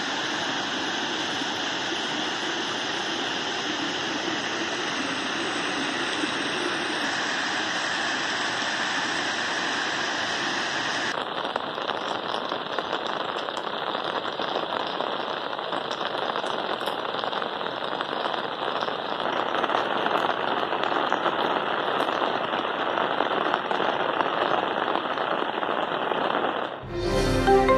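Heavy rain and muddy runoff water rushing in a steady noise. After a cut about eleven seconds in, the rain goes on with scattered light ticks. A music jingle starts just before the end.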